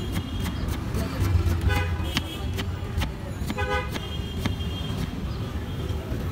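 Knife chopping through an onion onto a wooden board in quick, irregular taps, over steady street-traffic rumble. Vehicle horns honk through it, with two longer horn blasts about two seconds apart near the middle.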